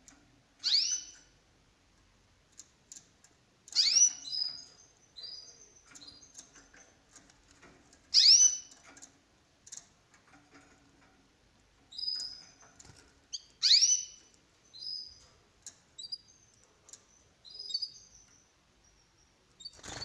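Domestic canaries calling and chirping: four loud calls that sweep upward in pitch, one about every four to five seconds, each followed by a quick run of shorter high chirps.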